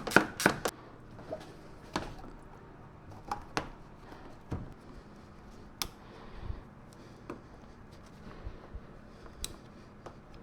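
Tools and parts clicking and knocking as a car's radiator fan shroud is bolted back in: a quick run of clicks at the start, then single knocks and taps every second or two.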